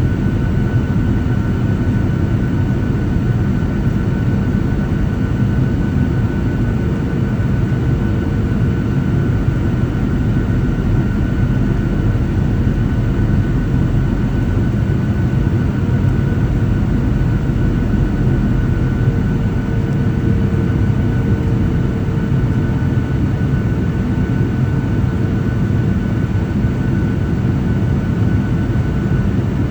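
Cabin noise inside a Boeing 737-800 on approach: a steady low rumble of airflow and its CFM56 turbofan engines, with a faint steady hum running through it.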